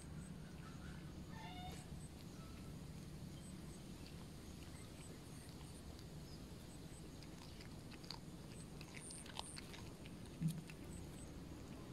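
A cat chewing and biting on small prey, a young snake it has caught. Faint crunching clicks gather in the second half, with one louder knock about ten and a half seconds in.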